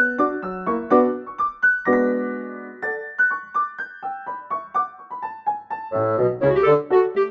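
Background music: a light piano melody of quick single notes, with a held chord about two seconds in and more instruments coming in near the end.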